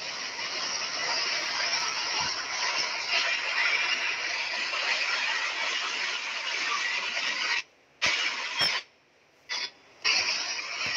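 Heavy rain pouring down in a steady hiss. The sound cuts out briefly three times near the end.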